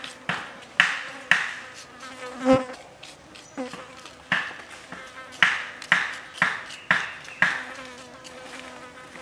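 Chopsticks tapping against a leaf to knock salt and chili flakes onto raw pork: a run of light, sharp taps about two a second, with a pause about three seconds in and one heavier tap with a dull thump just before it. The taps stop a little before the end, leaving a faint steady hum.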